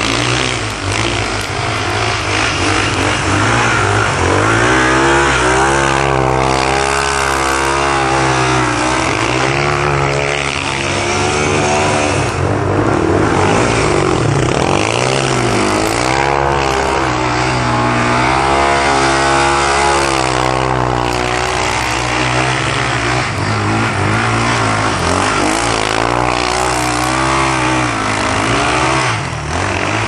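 Yamaha Raptor ATV's single-cylinder four-stroke engine revving up and down over and over as it is ridden through snow, with a steady hiss underneath.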